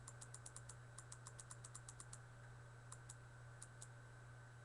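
Faint typing and clicking at a computer: a quick run of about ten light clicks in the first second, then scattered single and paired clicks.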